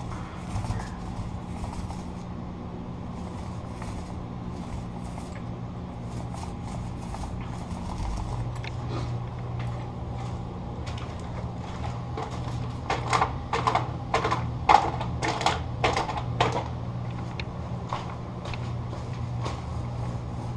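Paint roller and tools being handled while a door is painted, over a steady low hum. Partway through comes a quick run of about a dozen sharp clicks and taps lasting a few seconds.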